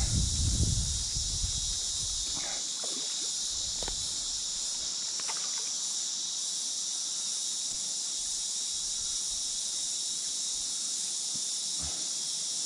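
Steady high-pitched insect chorus, with a low rumble in the first second or so and a few faint splashes from a hooked bass at the water's surface.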